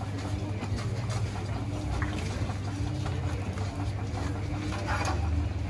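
Steady low hum under busy street-stall background noise, with a few brief handling noises about two and five seconds in.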